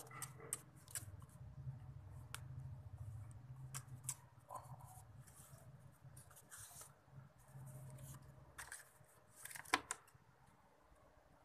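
A cat purring softly in a low, fast-pulsed rumble that pauses briefly and stops about nine seconds in, with scattered sharp clicks and rustles of the animal being handled, the loudest click near the end.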